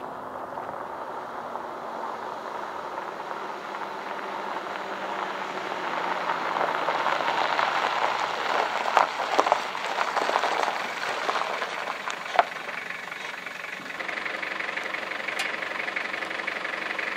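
Toyota pickup truck driving up a loose gravel track, its engine and tyres on the stones growing louder as it comes close, with scattered clicks from the gravel; the sound turns steadier near the end.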